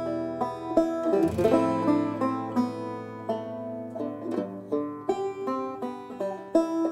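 Instrumental music: a melody of plucked-string notes, each starting sharply and fading, over a low held bass note.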